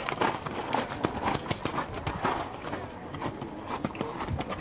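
Hoofbeats of a show-jumping horse cantering on an arena's sand footing: a run of soft, repeated thuds.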